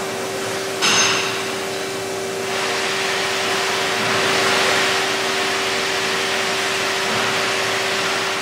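Steady hum and whir of running shop machinery with a constant tone, with a single metallic clank that rings briefly about a second in; the whir grows a little louder about two and a half seconds in.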